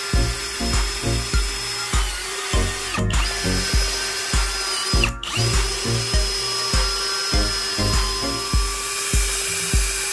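Drill turning a step drill bit that cuts through a PVC pipe end cap, a steady motor whine that breaks off briefly twice. Background music with a steady low beat plays over it.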